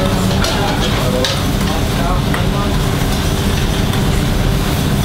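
Restaurant kitchen during service: steady sizzling of food frying in pans over the hum of running extractor hoods, with a few light clinks of plates and utensils.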